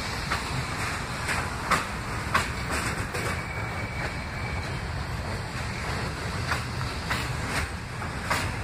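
R68 subway cars rolling slowly past, their wheels clicking irregularly over the rail joints over a steady low rumble.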